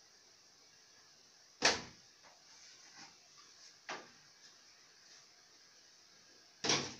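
Plastic back cover of a CRT television clunking as it is pulled off and handled: three knocks, the loudest about one and a half seconds in, a lighter one about four seconds in and another near the end.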